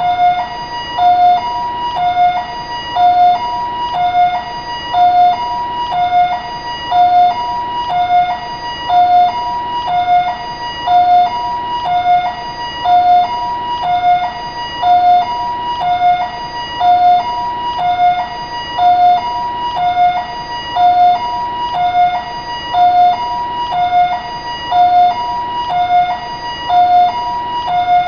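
Taiwanese ambulance siren sounding continuously, alternating steadily between a lower and a higher tone in an even hi-lo pattern.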